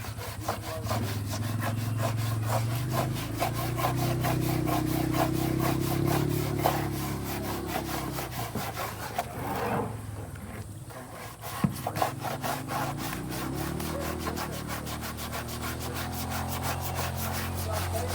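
A vehicle engine running, its pitch rising and falling, under a fast, even rasping rattle.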